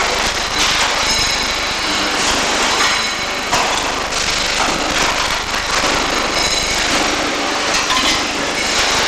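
Welding arc crackling and sizzling steadily, a dense continuous crackle with scattered sharper pops.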